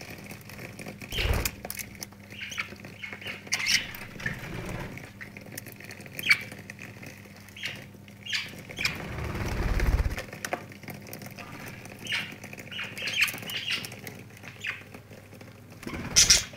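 Budgerigars bathing under a thin running stream of water, their wet wings flapping and splashing in short bouts. A flurry of wingbeats comes near the end as one bird flies off.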